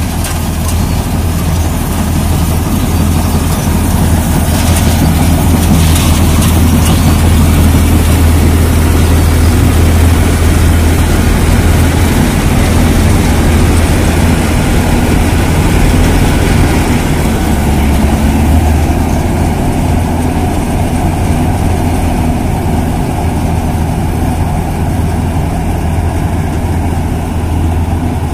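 Tractor-mounted combine harvester, a Standard TSC-513 on a John Deere tractor, running steadily while it cuts and threshes a crop. Its engine gives a loud, deep drone beneath a constant wash of noise from the cutter and threshing machinery.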